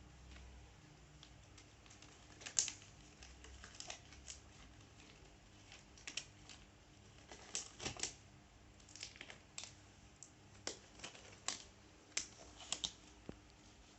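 Faint, irregular light clicks and rustles of hands being cleaned with hand sanitizer and latex examination gloves being pulled on, a dozen or so small clicks scattered through, the sharpest about two and a half seconds in.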